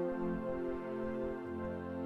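Concert wind band playing soft, sustained chords that change slowly, with low brass and woodwind harmonies held under a quiet melody.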